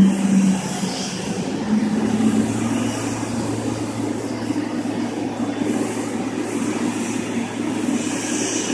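Steady low hum and rumble from a Boeing 777 airliner being towed by its pushback tug, with a faint high whine that grows a little louder near the end.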